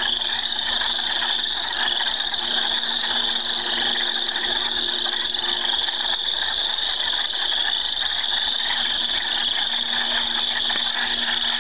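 A dense chorus of frogs calling continuously from a marsh pond, many overlapping high-pitched rising trills repeating about once a second. A faint steady low hum runs beneath it.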